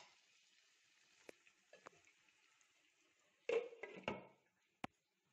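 Chicken frying in a kadai with a faint, steady sizzle, then a glass lid clattering down onto the pan with several quick knocks about three and a half seconds in, and one sharp click about a second later.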